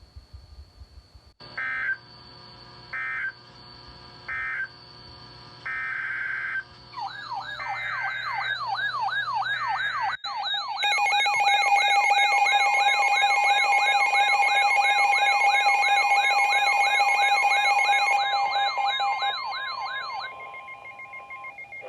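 Emergency Alert System tones: four short bursts of warbling digital data tones, then a fast wailing siren-like alert, about three sweeps a second, joined by the steady two-tone attention signal. The tones are loudest in the middle and fade out near the end, marking the start of a new warning.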